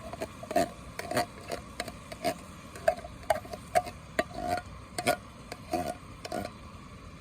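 A spoon scraping and clinking against a metal pot or can while beans are stirred into the chili: irregular short knocks, about two a second, some with a brief metallic ring.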